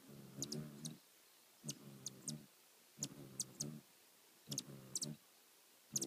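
Hummingbird's wings humming in short bursts about every second and a half as it hovers and darts close by, each burst carrying a few sharp high chip-like ticks.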